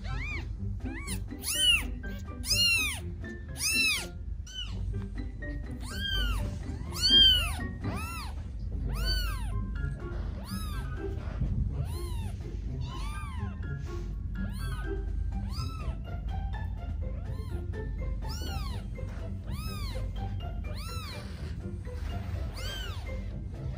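Five-day-old newborn kittens meowing over and over in short, high-pitched cries that rise and fall, the loudest ones in the first eight seconds, calling for their mother.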